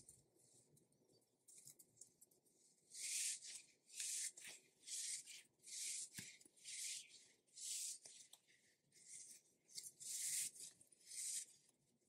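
Silicone gorilla squeeze toy being squeezed and kneaded by hand: a regular series of about ten short scratchy rubbing sounds of skin on the rubbery surface, starting about three seconds in.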